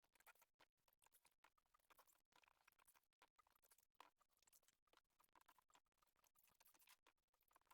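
Near silence, with faint, scattered small clicks.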